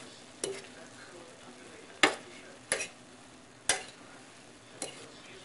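Metal fork stirring and tossing saucy instant noodles in a frying pan, clacking against the pan five times, loudest about two seconds in, over a faint steady sizzle.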